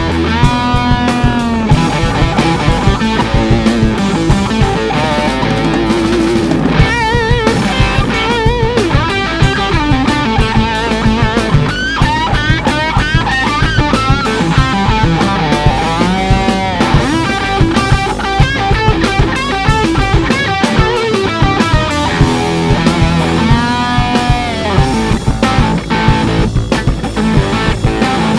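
Rock band playing an instrumental stretch of a blues-rock song: an electric guitar solos over bass and drums, with notes bent up and back down and shaken with vibrato.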